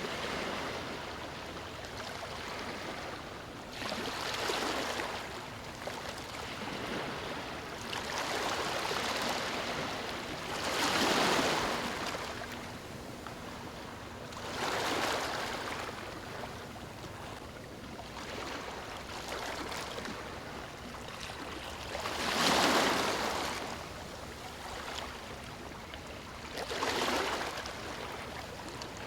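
Ocean waves breaking on a beach, the surf swelling and washing in every few seconds, with the biggest waves about eleven and twenty-two seconds in.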